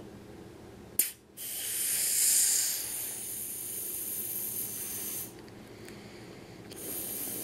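Breath blown through the narrow straw of a plastic-balloon toy (Bloonies-type balloon paste), a hissing rush of air as the plastic bubble inflates. A short click about a second in, then one long blow that is loudest early and tapers off, a pause, and a second blow starting near the end.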